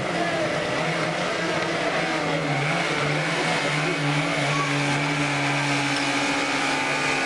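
Small combustion engine running steadily at high speed, typical of a portable fire pump working during a firefighting drill, over a wash of noise.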